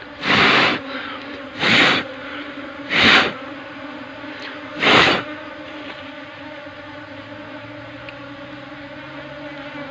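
Honeybees buzzing in a steady hum. Near the start it is broken by four short, loud hissing whooshes of air, a second or two apart.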